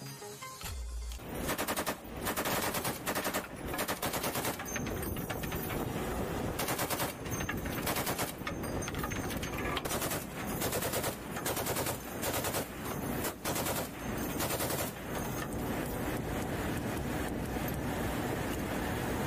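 Machine gun firing in long rapid bursts with brief pauses, starting about a second in.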